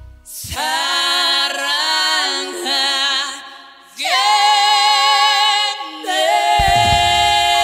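A song fades out, then a solo singing voice starts the next song unaccompanied: long held notes with vibrato in two or three phrases. Instrumental backing with bass comes in near the end.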